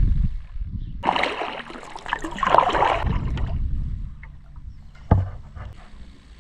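Kayak paddling: two splashing strokes of the paddle blade through the water, with a sharp knock near the end.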